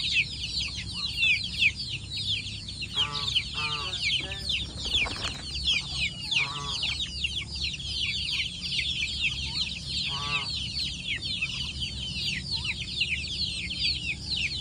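A flock of young village chickens peeping constantly in fast, high, falling chirps. A few lower clucking calls come through about three to four seconds in, again at six and a half seconds, and once more at ten seconds.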